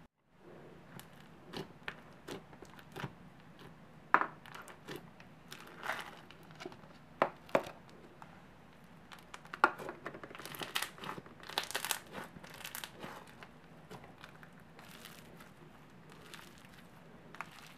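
Yellow floam slime, packed with tiny foam beads, being poked, pulled and stretched by hand: scattered crackles and a few louder pops, with a denser run of crackling a little past the middle.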